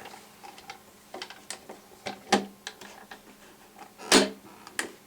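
Irregular clicks and knocks of hard plastic toys being handled, with two louder knocks, one a little past two seconds in and one about four seconds in.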